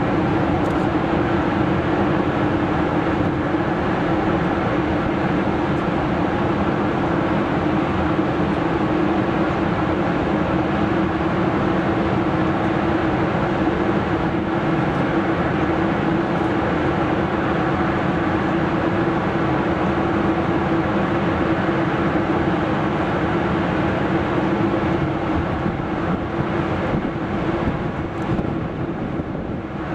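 Boeing 747-400 jet engines running at taxi power: a steady engine noise with a low hum, easing off slightly near the end.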